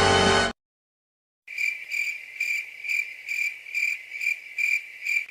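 Crickets chirping: a high, even chirp that pulses a little more than twice a second, starting about a second and a half in.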